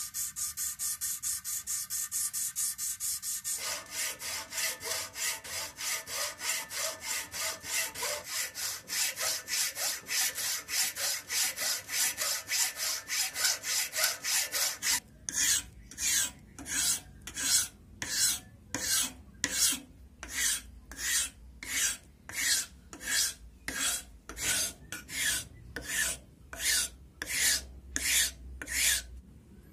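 Hand work on hardwood in a vise, in three parts. First, a sandpaper strip is pulled quickly back and forth over the end of a jackfruit-wood axe handle. From about three and a half seconds in, a hacksaw cuts the wedge slot into the handle's end in fast strokes. From about halfway, a flat file rasps a small wooden wedge in slower, separate strokes, about one and a half a second.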